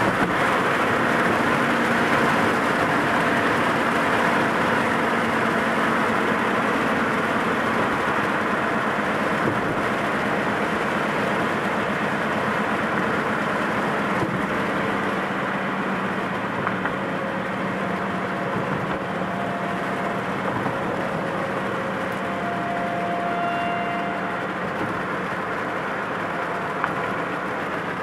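Steady road and engine noise of a moving car, heard from inside, slowly easing in loudness.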